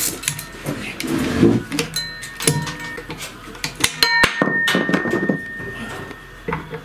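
Metal knocks and clinks of tools against walk-behind tractor gearbox parts during disassembly, with a sharp metallic clang about four seconds in that rings briefly.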